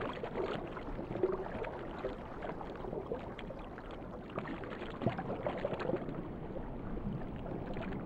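Underwater water ambience: a steady muffled wash of moving water with small scattered bubbling clicks.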